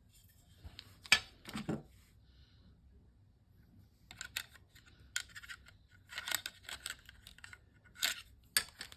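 A newly unboxed doorbell and its parts and packaging handled at close range: a sharp click about a second in, then scattered clicks, taps and light rattles in two clusters later on.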